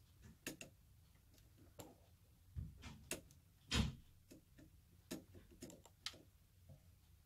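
Scattered small clicks and knocks of a plastic power-cable connector being handled and pushed into its socket on an inverter's control board. The clicks come at irregular intervals, and the loudest is about four seconds in.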